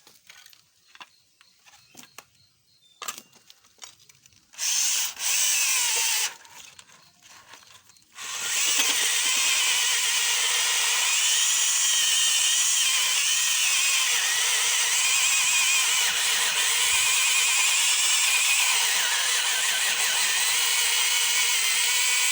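Makita 12 V cordless drill, fitted with a keyless chuck and set to drill mode: a few light handling clicks, two short bursts of the trigger, then from about eight seconds in the drill runs steadily at high speed, drilling into plywood or wood.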